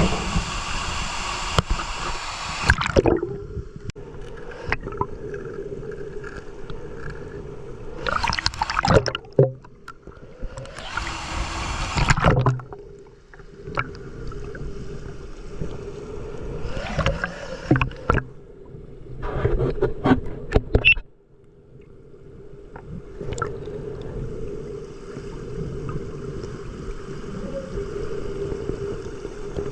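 Muffled water sounds, a steady low hum with several short rushing bursts of water noise every few seconds.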